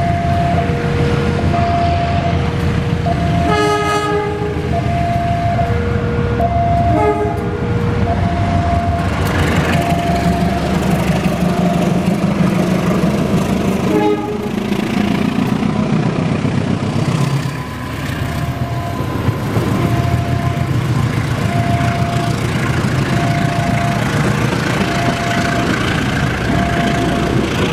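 A passenger train rumbling past a level crossing while the crossing's warning signal sounds as two alternating tones. The signal falls silent about a third of the way in and comes back about two-thirds in. The locomotive's horn gives short blasts about four and seven seconds in.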